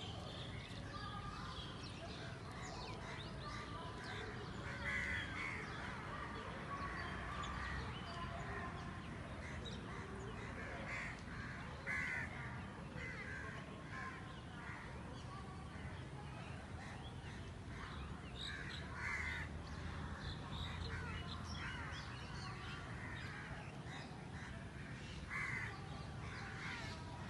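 Crows cawing every few seconds, with smaller birds chirping in between.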